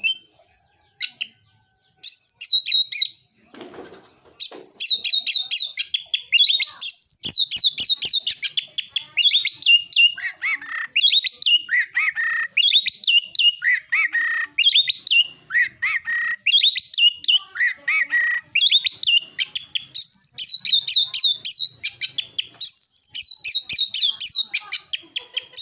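Oriental magpie-robin (kacer) singing its full, fast 'gacor' song: a dense run of sharp, repeated sweeping chirps and whistles, starting about two seconds in after a few scattered notes.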